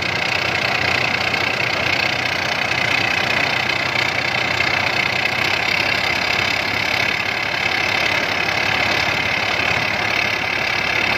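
Rice combine harvester running steadily, its engine and machinery giving a continuous even clatter with no change in speed.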